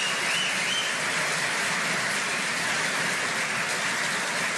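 Audience applauding steadily in a lecture hall, with a short whistle from the crowd near the start.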